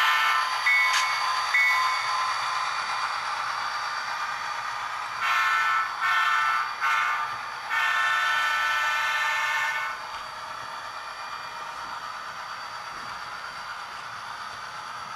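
HO-scale diesel locomotive's Tsunami DCC sound decoder blowing its horn through the model's small speaker: four blasts about five seconds in, the third short and the last the longest, the long-long-short-long grade-crossing signal. Under it runs the steady hiss of the model train's running sound, quieter after the horn stops.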